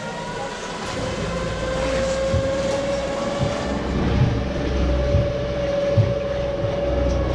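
Glass-bottom tour boat's motor running with a steady whine over a low rumble, with a few light knocks.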